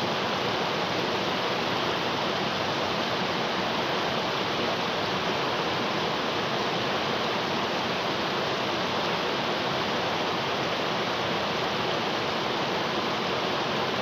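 Fast river water rushing over rocks and rapids: a steady, even rush of white water.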